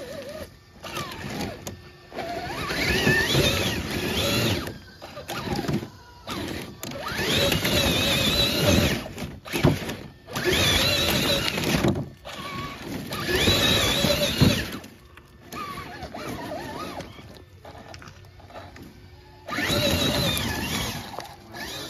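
Axial SCX6 Honcho RC crawler's electric motor and geared drivetrain whining in repeated throttle bursts a second or two long, the pitch rising as each one spins up, with a knock or two as it climbs over rock.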